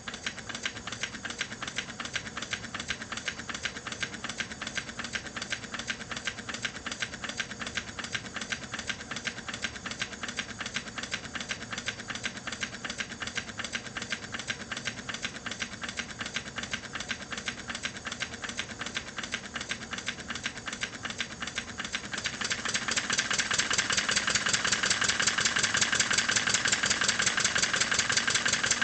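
Stuart Twin launch model steam engine, a reversible twin-cylinder, running on compressed air: a rapid, even chuffing of exhaust beats that starts at once and grows louder about three-quarters of the way through.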